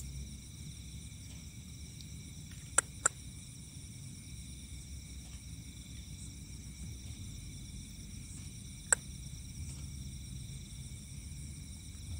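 Crickets and other night insects calling steadily in several high-pitched tones over a low rumble. Two sharp clicks come close together about three seconds in, and one more near nine seconds.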